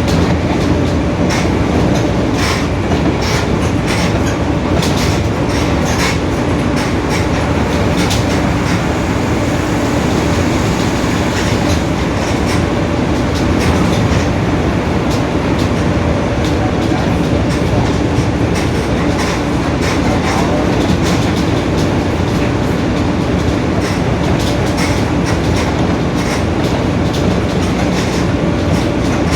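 Mercedes-Benz OF-1721 city bus under way, its rear differential droning very loud: a steady held tone over road noise, with frequent rattling clicks from the body.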